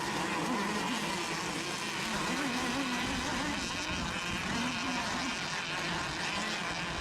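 Several radio-controlled racing boats' small engines buzzing at speed across the water, their pitch wavering up and down as they run the course.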